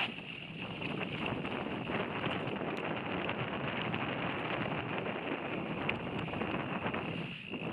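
Mountain bike riding fast down a dirt singletrack: steady wind rush on the camera microphone mixed with tyre noise on the dirt and frequent small clicks and rattles from the bike.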